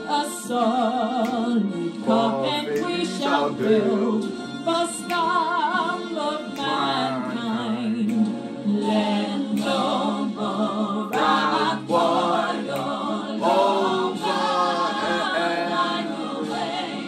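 Female singer with choir and orchestra performing a Soviet wartime march song in English, the held notes sung with wide vibrato.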